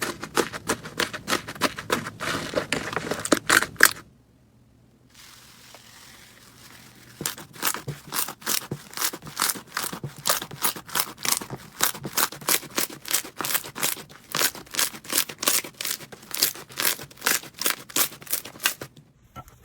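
Slime being pressed and squeezed by hand, giving dense crackling and popping. After a brief break about four seconds in, the crackling pops come back in a steady rhythm of about three a second.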